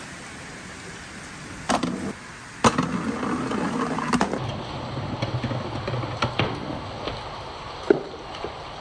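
Marbles rolling along a wooden marble-run track, with a continuous rolling rumble from about three seconds in and several sharp clacks as the balls strike the wood.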